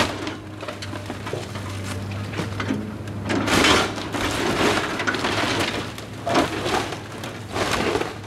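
An excavator's demolition grapple crushing and tearing the wood-framed roof of a house: several bursts of cracking and splintering timber over the steady low hum of the Komatsu excavator's engine.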